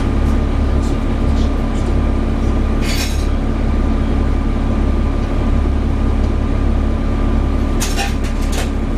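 Interior sound of a Volvo B7TL double-decker bus under way: the six-cylinder diesel engine gives a steady low drone, with a thin steady whine above it. Two brief sharp noises cut through, about three seconds in and again near the end.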